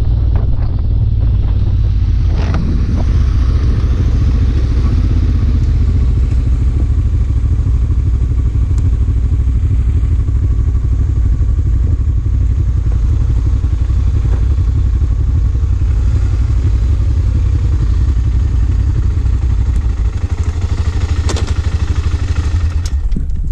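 Motorcycle engine running on a ride over a gravel road, with heavy low wind rumble on the helmet-mounted microphone. A few knocks and clatters come from the bike over the gravel, one a couple of seconds in and a couple near the end. The rumble eases off toward the end as the bike slows.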